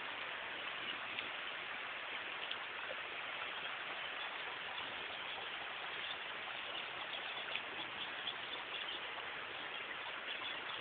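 Steady rain falling: an even hiss with faint scattered drip ticks.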